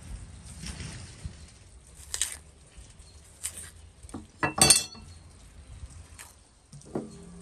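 Kitchen prep handling: a kitchen knife working an onion over a wooden cutting board with scattered scrapes and taps, then a loud metallic clink a bit past the middle. A short ringing knock near the end as produce and a metal tray are handled.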